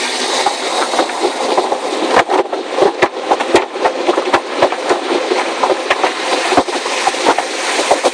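Soft-cloth strips of an automatic tunnel car wash slapping and scrubbing over the windshield and body, heard from inside the car: a constant wet swishing with irregular thuds, about two a second, over water spray.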